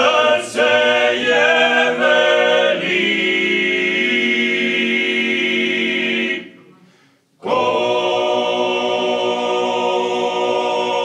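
Male vocal ensemble singing a cappella in chords: a moving phrase that settles into a long held chord, a brief break a little past the middle, then another long held chord.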